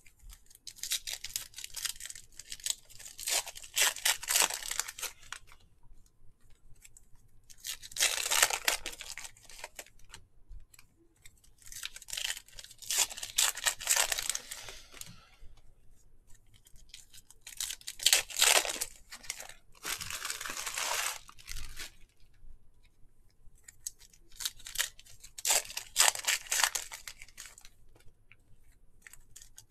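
Foil wrappers of trading card packs being torn open and crinkled by hand, in repeated bursts of a few seconds each, about every five to six seconds.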